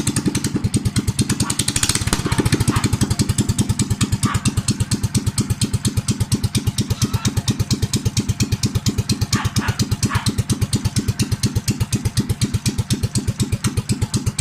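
Honda GX390 single-cylinder four-stroke engine running steadily at low speed, an even, rapid train of firing pulses, after its oil change and valve tune-up.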